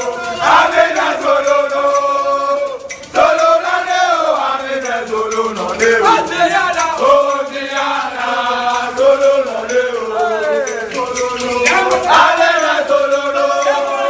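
A group of men singing a team chant together, loudly and in unison, breaking off for a moment about three seconds in.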